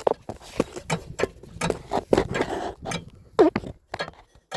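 Torque converter clunking as it is rocked by hand against the flex plate, knocking irregularly about three or four times a second. Its flex-plate bolts are loose, and this slap is what sounds like a rod knock when the engine starts or shuts off.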